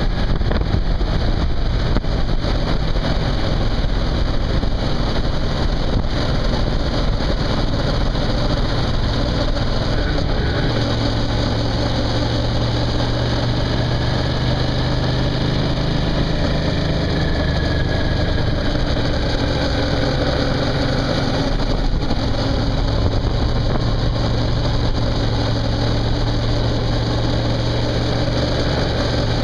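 Suzuki V-Strom motorcycle engine running steadily while riding at road speed, under a constant rush of wind and road noise; the engine note grows stronger about ten seconds in.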